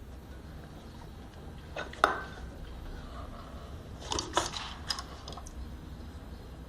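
Tableware clinking on a breakfast table: one sharp clink with a brief ring about two seconds in, then a quick run of several lighter clinks a couple of seconds later.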